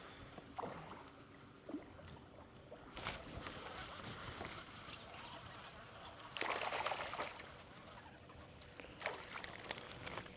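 Water sloshing and splashing lightly around a fishing boat, with scattered small knocks and a louder rush of water noise about six and a half seconds in.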